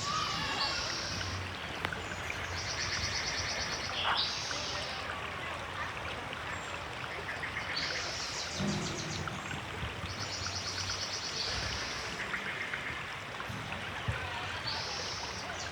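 River water flowing steadily, with a bird repeatedly singing a high, rapid trill about every three to four seconds.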